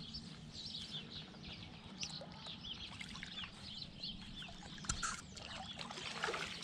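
Many birds chirping, with light splashing and trickling of water as a small redtail catfish is released by hand at the water's edge; a single sharp knock about five seconds in.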